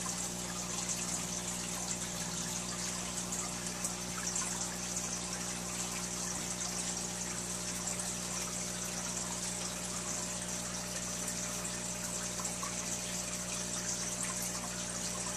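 Small aquarium filter running: a steady motor hum under a constant trickle of water.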